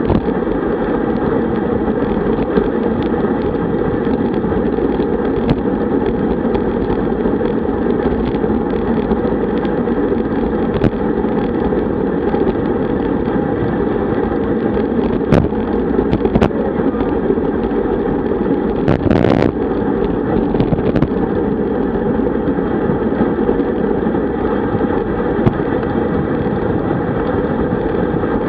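Steady wind rushing over the microphone of a camera mounted on a road bike moving at speed, mixed with tyre and road noise. A few sharp clicks, and a short rattle about nineteen seconds in.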